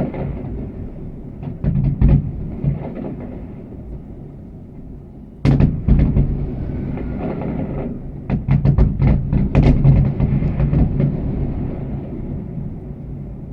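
Fireworks going off: a big bang about five and a half seconds in, then a quick run of sharp cracks between about eight and ten seconds, over a continuous low rumble.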